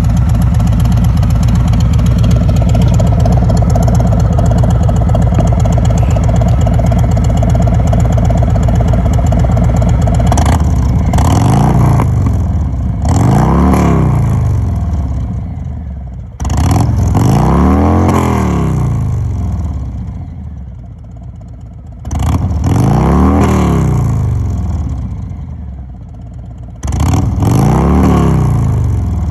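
Bagger motorcycle engine on its stock exhaust, idling steadily for about ten seconds, then revved up and let fall back about five times.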